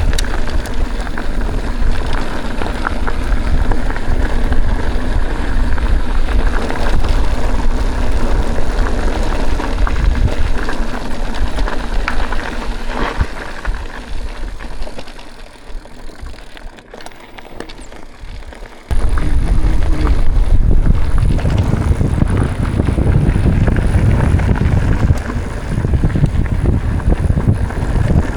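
Mountain bike riding over a dirt and gravel trail: tyre noise and rattling mixed with wind on the microphone. It quietens for a few seconds past the middle, then comes back loud suddenly.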